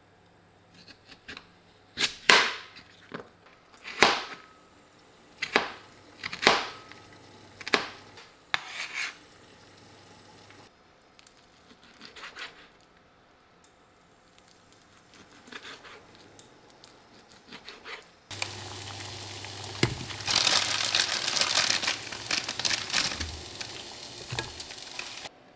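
A kitchen knife chopping carrots on a wooden cutting board, about seven sharp strikes in the first nine seconds, then softer knife strokes slicing raw chicken. About eighteen seconds in, a continuous rushing noise begins as egg noodles cook in a saucepan.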